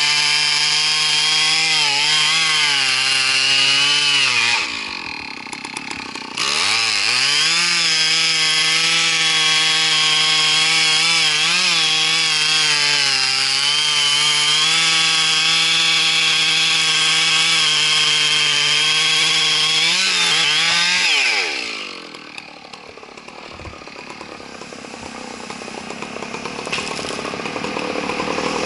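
Two-stroke chainsaw running at high revs while cutting wood, its pitch sagging and recovering under load. It drops away briefly about five seconds in, then runs at full revs again until about three-quarters of the way through, when the throttle is released and the revs fall. A quieter sound builds after it.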